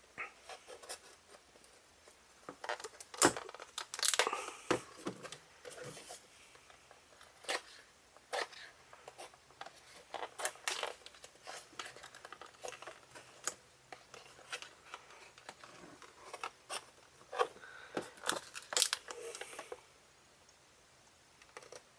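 Hobby knife blade cutting and scraping through tape on a cardboard-and-plastic toy package, heard as irregular short scratches, scrapes and clicks with light packaging crinkle.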